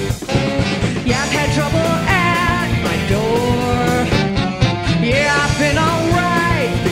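Live rock band playing an instrumental passage: a lead melody line slides and bends in pitch over bass and drums.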